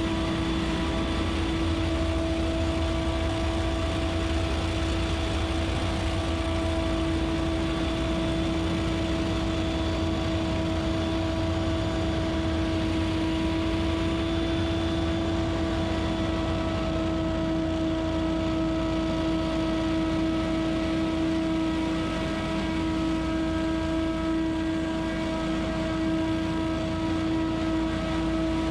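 Scag Windstorm stand-on leaf blower running steadily, a constant whine over a low rumble.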